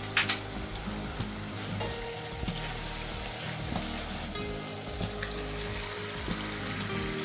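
Minced beef and garlic frying in olive oil in a stainless steel saucepan: a steady sizzle with a few small clicks.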